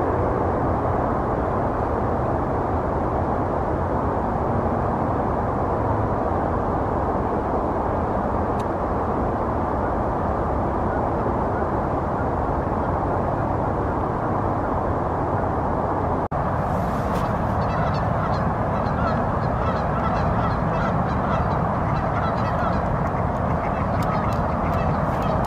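Steady low background noise outdoors, joined after a cut about two-thirds of the way through by a run of many short, repeated bird calls.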